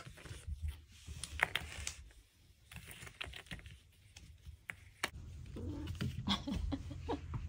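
Kittens at play: irregular light clicking and tapping on a hard surface, with one sharper click about five seconds in.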